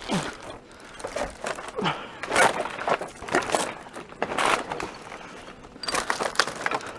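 Footsteps crunching and scraping over loose debris, in irregular bursts spread through the seconds.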